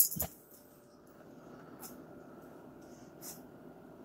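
A sharp click at the start, then quiet room tone with faint rustling and a couple of soft clicks.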